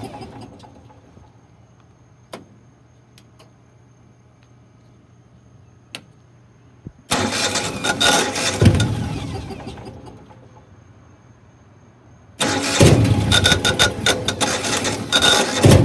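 Generac 8.5 kW natural-gas standby generator's engine cranking on its starter in repeated attempts that fail to start it. Each burst of cranking fades away, with quiet gaps between them holding a few clicks. Cranking resumes about 7 seconds in and again about 12 seconds in.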